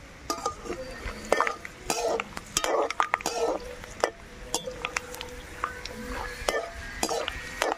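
Perforated metal skimmer scraping and clinking against a metal wok, stirring peanuts frying in hot oil, with the oil sizzling underneath. The scrapes and clinks come repeatedly and at uneven intervals.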